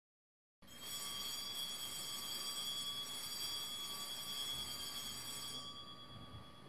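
A steady, high-pitched ringing tone with several high overtones, starting abruptly just under a second in; the highest overtones fade near the end before the sound cuts off.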